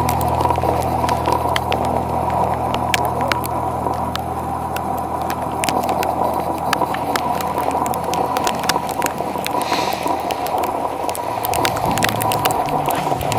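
Footsteps crunching through snow, many short crackling steps, over a steady low hum.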